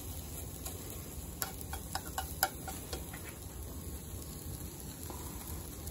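Omelette frying quietly in a non-stick frying pan over a gas burner, a low steady sizzle, with a few light clicks of chopsticks against the pan between about one and a half and three seconds in.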